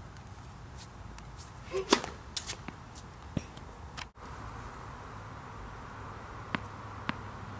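Tennis ball bounced on a hard court between serves: sharp taps, a quick cluster about two seconds in, then two single bounces about half a second apart near the end, over a steady low background hum.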